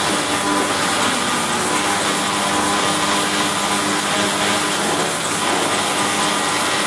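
Automatic milking machine running, with a steady mechanical whir and hum, as its striped roller brush works against a cow's teats.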